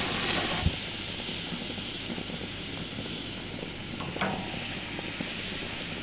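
A steady hiss, louder for the first half-second, with a single short knock just after.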